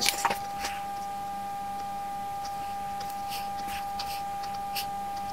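Pencil scratching on paper in short strokes while circuit symbols are drawn, over a steady high-pitched electronic tone and a faint low hum.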